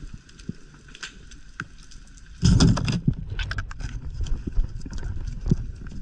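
Underwater noise heard through a diver's camera housing: scattered sharp clicks and knocks, then a loud rushing burst about two and a half seconds in. After the burst a denser low rumble of water and movement continues, dotted with more clicks.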